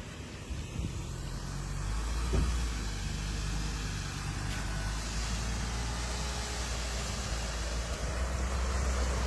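Four-wheel-drive vehicle's engine running steadily on an off-road track, with a single knock about two seconds in and a hiss that grows in the second half.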